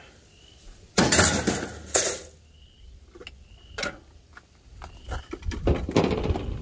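Loose metal parts and junk being handled and shifted by hand inside an old car: a scraping shuffle about a second in, scattered clicks and clinks, then a building rumble of things being moved near the end.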